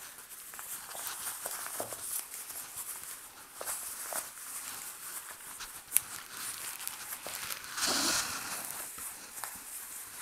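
Faint rustling and crinkling of a shirt being handled and folded on a tabletop, with scattered small taps and clicks. There is one sharp click about six seconds in and a louder rustle about eight seconds in.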